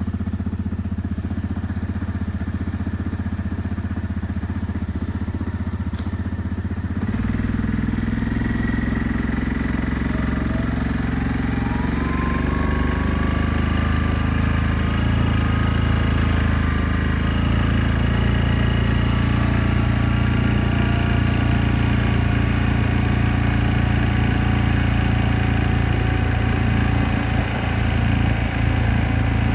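Yamaha Grizzly ATV engine running. Its note steps up about seven seconds in, and a whine rises over the next few seconds as the ATV picks up speed. It then runs steadily while riding.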